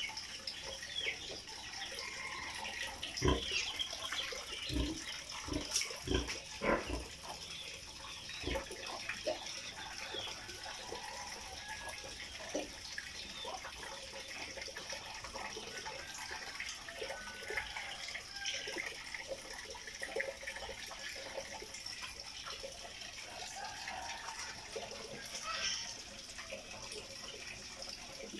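Wet, watery sounds in a concrete pig pen where a sow has just been bathed, with several sharp knocks in the first nine seconds over a steady high hiss.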